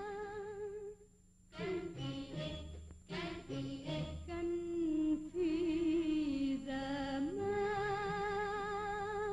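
A woman singing an Arabic song, with long held notes and a wide vibrato; a short pause about a second in, and a long held note at the end.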